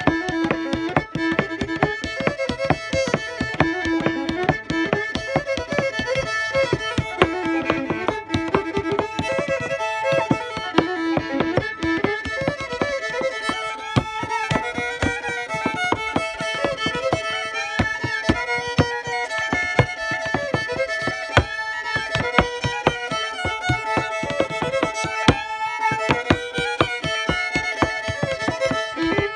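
Solo fiddle playing a fiddle tune, with the fiddler's boots step-dancing on a plywood board and tapping out quick, steady percussion under the melody.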